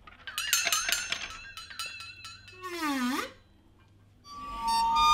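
Wavering high squeaky tones with small clinks, then one glide that falls steeply and turns back up. Music with steady held notes begins about four seconds in.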